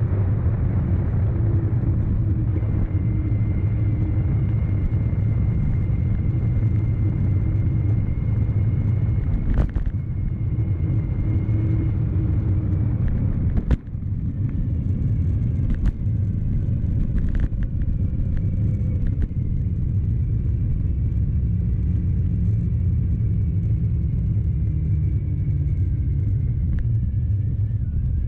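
CYC X1 Stealth Gen3 mid-drive e-bike motor running under way, a faint high whine over a steady low rumble from the ride. A few sharp clicks or knocks come in the middle stretch.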